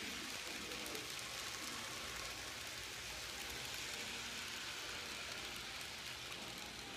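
Model freight train rolling past on sectional track: a steady rattling hiss of small wheels and cars with fast light clicks, easing off slightly near the end as the last cars go by.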